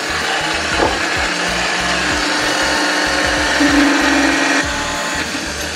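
Femi NG160 metal-cutting band saw running, its blade cutting through a metal bar for a pedal lever. A steady motor hum and cutting noise gets louder between about three and a half and four and a half seconds in, then drops a little.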